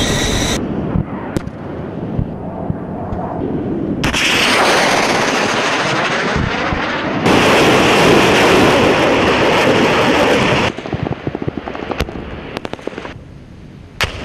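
A multiple rocket launcher firing a salvo. A dense rushing roar of rockets launching starts about four seconds in, grows louder midway, and cuts off suddenly. Scattered sharp cracks follow, then one loud bang near the end.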